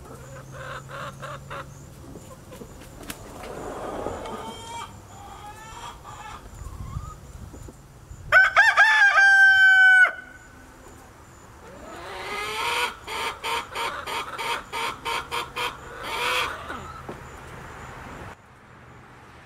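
Chickens clucking softly, then a rooster crows once loudly about eight seconds in, a single call of about two seconds. A few seconds later a hen cackles in a run of quick repeated notes, about three a second, ending on a longer note.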